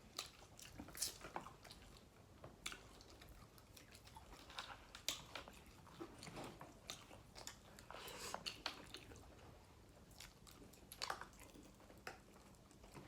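Faint close-up eating sounds: chewing and biting of food, with many short, crisp crunches and clicks scattered irregularly throughout.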